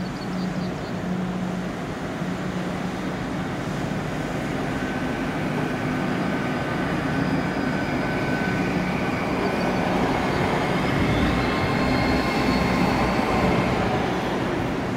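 A train in the station, its engine or motors humming steadily, with a higher whine that builds and grows louder in the second half.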